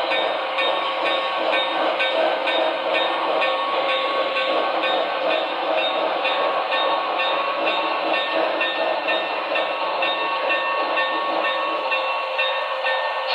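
Model of a Pennsylvania Railroad T1 duplex steam locomotive and tender running along the track: a steady running noise with a faint regular beat and some hiss.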